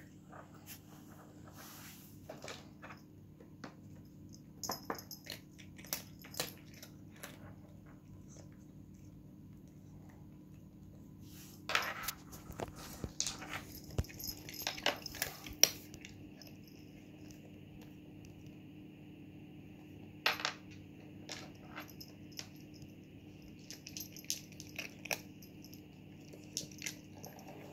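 Cat eating from a SureFeed microchip pet feeder: irregular crunches and sharp clicks of food and plastic bowl, in clusters, the busiest a little under halfway through. A steady low hum runs underneath.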